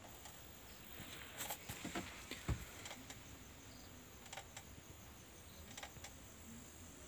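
Faint room tone with a low hum, broken by a few light scattered clicks and knocks of handling.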